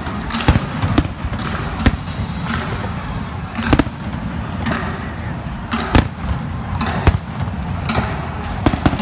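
Aerial firework shells bursting overhead: about eight sharp bangs at irregular intervals, over a continuous hum of crowd voices.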